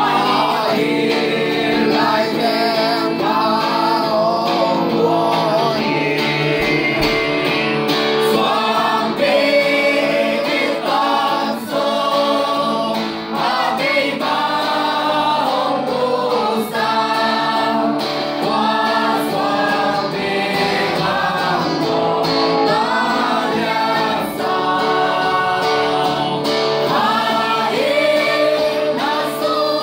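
A mixed group of men's and women's voices singing a gospel song together, accompanied by an electric guitar.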